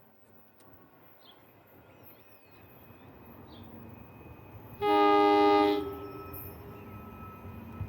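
Train horn sounding one blast of about a second, a chord of several notes, over the rising rumble of an approaching NJ Transit train.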